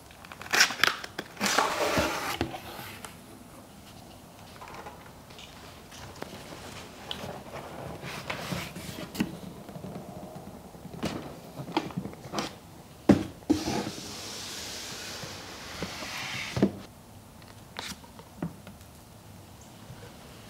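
Hands opening a cardboard shipping box: cardboard flaps rustling and scraping, with scattered taps and knocks on the box. A longer scraping, hissing sound lasts about two seconds roughly two-thirds of the way through.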